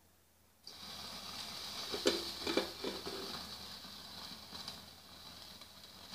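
Masala-marinated chicken sizzling on a wire mesh grill over an open gas flame: a steady hiss that starts suddenly under a second in, with a few light knocks as the chicken is handled a couple of seconds in.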